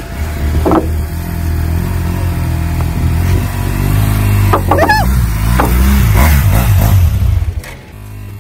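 A motor engine running loudly and steadily, revving up and down around the middle; it falls away near the end.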